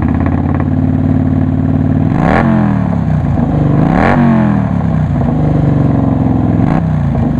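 Kawasaki Vulcan 900's V-twin engine idling through Cobra Speedster swept exhaust pipes. It is blipped twice, with the pitch rising and falling quickly about two and four seconds in, and once more lightly near the end.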